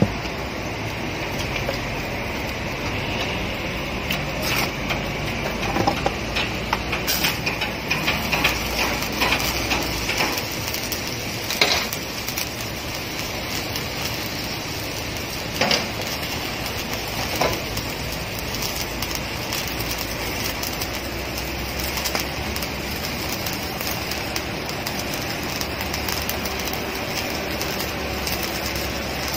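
Stick (shielded metal arc) welding arc crackling steadily as a vertical weld is run along a steel plate seam, with a few louder pops here and there. This is the final finishing pass on the joint.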